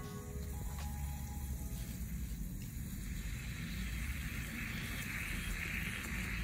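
Water hissing and fizzing around a mains-powered razor-blade heater in a glass of water, the hiss growing louder about halfway through as the water heats, over a steady low rumble.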